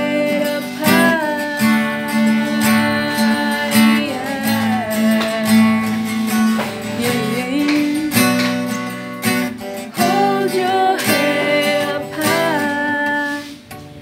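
Acoustic guitar strummed as accompaniment to singing, a sung melody wavering over steady chords.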